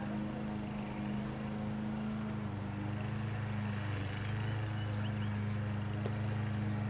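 Steady low machine hum, its pitch shifting slightly about two and a half seconds in.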